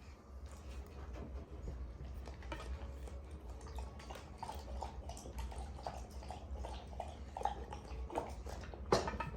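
A Labrador retriever eating: wet chewing, licking and smacking mouth sounds in quick short clicks, with a louder smack near the end, over a steady low hum.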